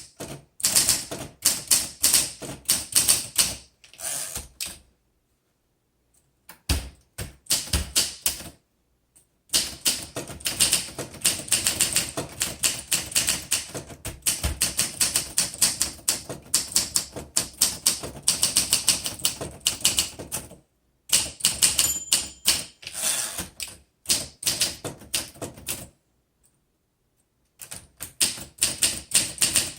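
A 1959 Olympia SM3 manual typewriter being typed on: rapid runs of key strikes clacking against the platen, in bursts broken by a few short pauses.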